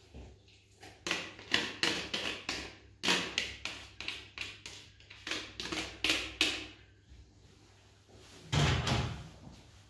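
White plastic colander knocked over and against a plastic mixing bowl, about three sharp taps a second, as boiled chard is shaken out of it; one heavier thump near the end.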